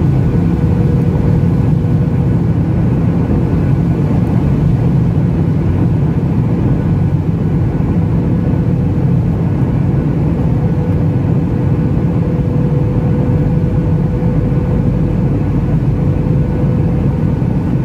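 Steady cabin noise of a Boeing 737 MAX 8 climbing out after takeoff: its CFM LEAP-1B engines and rushing airflow, heard from inside the cabin by the wing, with a thin steady hum running through it.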